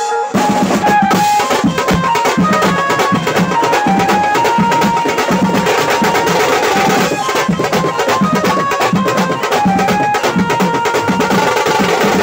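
Drum band playing: a row of drummers on tom drums, snare and bass drum with crash cymbals, kicking in loud just after the start and beating evenly, with a melody line on top.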